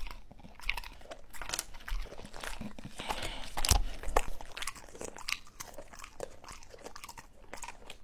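A dog crunching and chewing a dehydrated apple chip close to a microphone: a quick run of crisp, crackling crunches, loudest about three and a half seconds in.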